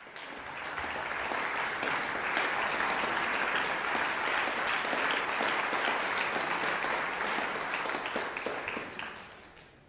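Concert audience applauding, building up over the first second and dying away near the end.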